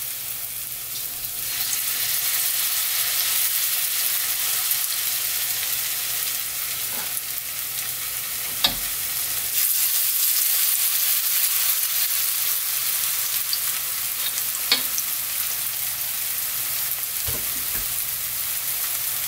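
Pumpkin pancake batter sizzling as it fries in plenty of hot oil in a frying pan: a steady crackling hiss that grows a little louder about two seconds in, with a few short light clicks.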